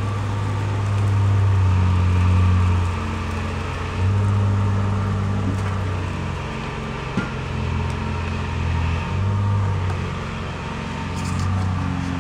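A steady low hum that steps up and down in level a few times, over faint sizzling of meat cooking on a gas grill.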